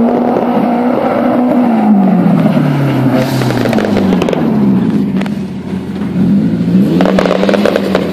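Drifting car's engine revving, its pitch falling and rising several times as the driver works the throttle through the slide, with a louder rush of noise about seven seconds in.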